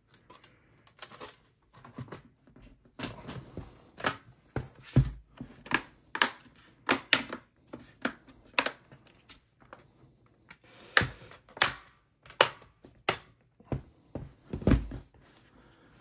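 Plastic bottom cover of a Dell Precision 3540 laptop being pressed onto the chassis, its clips snapping into place: an irregular string of sharp clicks and snaps, a few with a dull knock.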